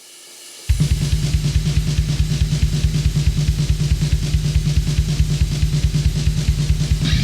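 War metal track starting: a faint swelling noise, then under a second in the full band crashes in at once, with rapid, evenly repeated drumming over heavy distorted guitar. Near the end a brighter, hissier layer joins.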